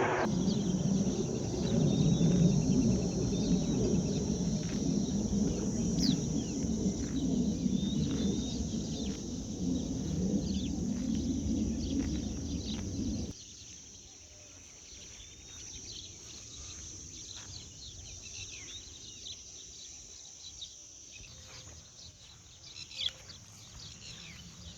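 Outdoor ambience of small birds chirping over a steady high insect drone. For about the first thirteen seconds a loud low rumble covers it, then cuts off suddenly.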